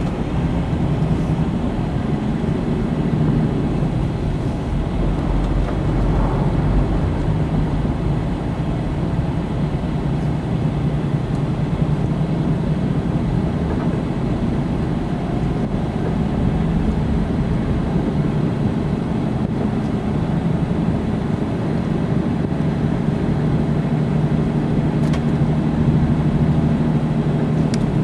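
A 4x4 vehicle being driven: the engine runs with a steady drone over rumbling road noise.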